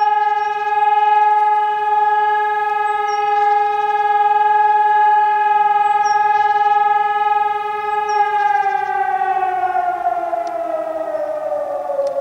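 Civil defence warning siren sounding one steady tone during a siren test; about eight seconds in, its pitch starts to fall steadily as it winds down.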